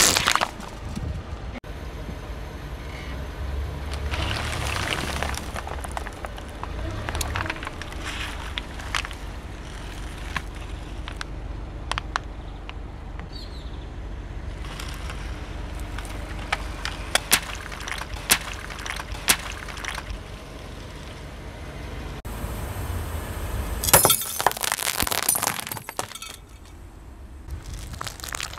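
A car tyre rolling slowly over and crushing objects on asphalt. Plastic soda bottles and water beads burst at the start, then come scattered crunches, sharp cracks and pops, and a dense loud burst of crackling about three-quarters of the way through. Near the end, toothpaste tubes are squashed under the tyre.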